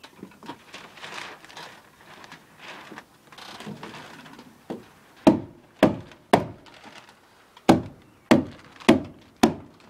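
Seven sharp hammer blows on wood, three then four, beginning about halfway in, after a few seconds of faint rustling and handling noise.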